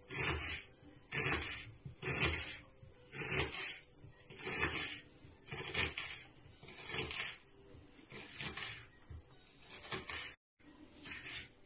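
Kitchen knife slicing through a raw onion on a wooden cutting board, a crisp crunching cut about once a second.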